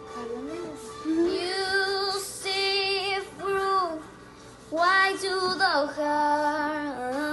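A young girl singing solo, holding long notes with vibrato over several short phrases separated by brief breaths.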